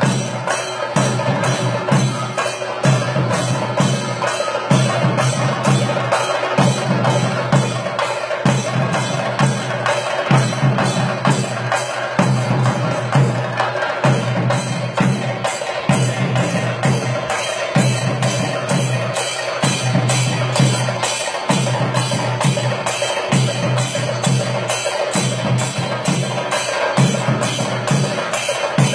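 Kerala temple percussion ensemble of chenda drums and hand cymbals playing a steady, fast beat: sharp, even cymbal strokes all through, with deep drum strokes coming in a repeating pattern about once a second.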